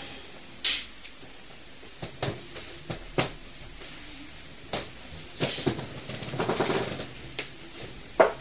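Scattered sharp knocks and clicks inside a flat, about one every second or two, with a short run of rapid rattling ticks about six to seven seconds in and a louder knock near the end.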